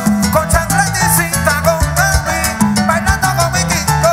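Live Cuban timba band playing salsa, with keyboard and conga drums in a dense, steady groove.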